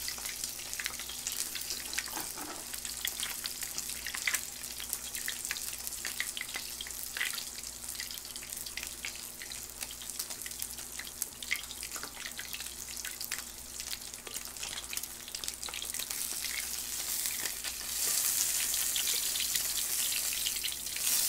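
Pork belly sizzling on an electric grill pan, a steady hiss with scattered small pops of fat. The sizzle grows louder near the end, as the meat is lifted and turned with tongs.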